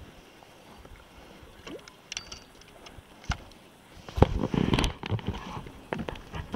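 Faint water and a few light clicks while a bluegill is reeled in beside a plastic kayak. About four seconds in, a short burst of splashing and thumps comes as the fish is lifted out of the water.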